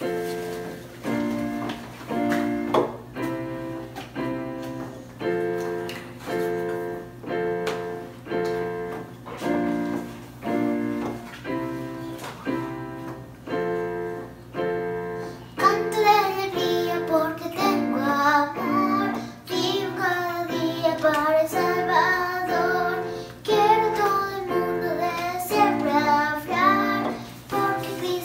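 A young girl's electronic keyboard playing evenly paced, repeated chords as an introduction. About halfway through, her child's singing voice comes in with the melody over the keyboard accompaniment.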